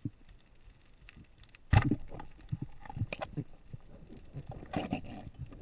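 A sharp knock about two seconds in, then scattered knocks, crackles and water sounds from a spearfishing diver moving in the sea.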